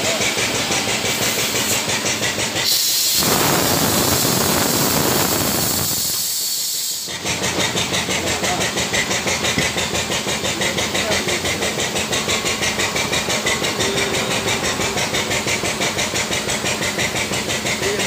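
Power unit of a hydraulic truck-tyre changer running with a steady, even pulse. A loud hiss joins it from about three seconds in and cuts off abruptly about four seconds later.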